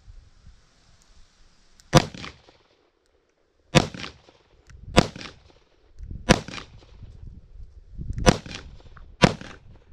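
Six shots from a Kimber K6S 2-inch .357 Magnum revolver firing hollow-point self-defense rounds. It is slow, aimed fire with one to two seconds between shots, each a sharp crack with a short ring after it. The first shot comes about two seconds in and the last near the end.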